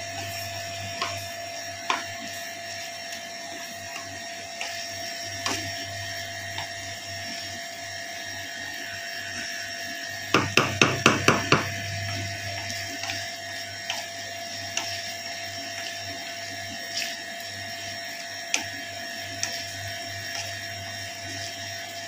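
Wooden spatula stirring and scraping diced chicken in a nonstick frying pan, with scattered light clicks and, about halfway through, a quick run of about six taps of the spatula on the pan. A steady hum runs underneath.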